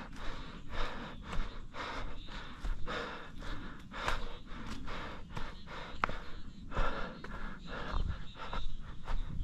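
A runner's heavy breathing while running uphill: quick, regular, hard breaths in and out, about two a second.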